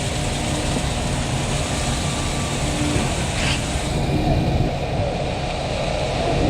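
Concrete pump truck running steadily under load, with a short hiss that recurs about every three to four seconds.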